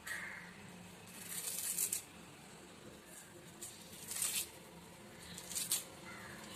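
Fibrous skin being torn and peeled by hand in strips off palmyra sprouts (panakizhangu), a few short rasping tears.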